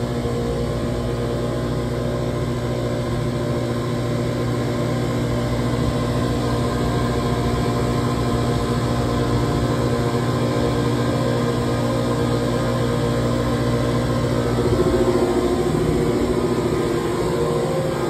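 Trane chiller running: a steady machine drone made up of several steady hums, swelling slightly about fifteen seconds in.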